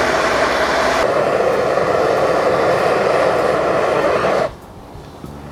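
Hand-held gas blowtorch burning with a steady, loud hiss as its flame heats a magnesium block. About four and a half seconds in, the sound drops abruptly to a quieter hiss.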